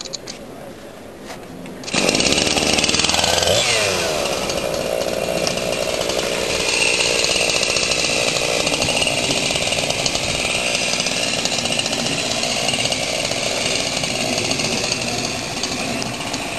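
A large two-stroke Husqvarna chainsaw, the power unit of a chainsaw mill, starts suddenly about two seconds in, its revs falling away just after, and then runs steadily and loudly.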